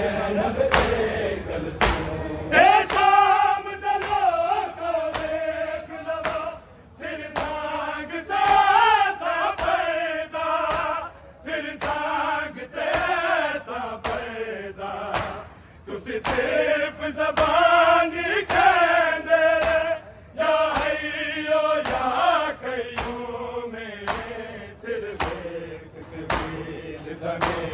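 A group of men chanting a noha (Shia lament) in unison, in long melodic phrases. Sharp, evenly spaced hand slaps of chest-beating (matam) keep the beat underneath.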